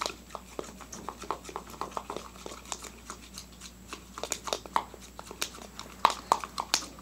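A spoon stirring glue and laundry detergent in a plastic bowl, making irregular clicks and scrapes against the bowl, with a few louder knocks near the end. The glue is being mixed with the detergent activator as slime begins to form.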